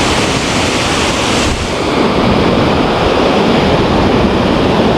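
Waterfall rushing, a loud steady roar of falling water with a brief dip about a second and a half in.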